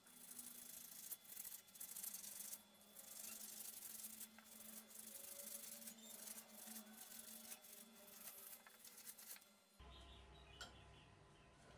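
Sandpaper rubbed by hand over a steel hammer head in short, uneven scratchy strokes. About ten seconds in it gives way to the steady low hum of a bench grinder motor spinning a cloth buffing wheel.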